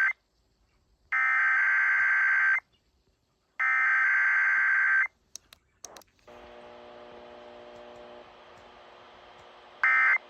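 Emergency Alert System SAME data bursts: harsh, buzzy digital screeches about a second and a half long, repeated a second apart, the tail of one and then two more. After a few clicks comes a faint steady low hum, and near the end a short burst, the first of the end-of-message codes.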